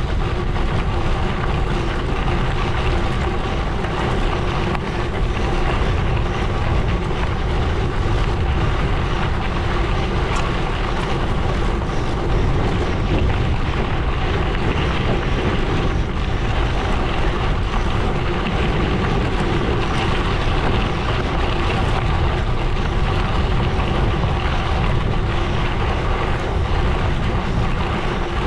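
Gravel bike tyres rolling steadily over a gravel road, with wind rushing over the microphone.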